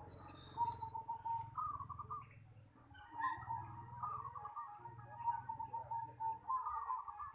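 Zebra doves (perkutut) cooing: a rolling, warbled phrase repeated about every three seconds, with steadier coo notes in between.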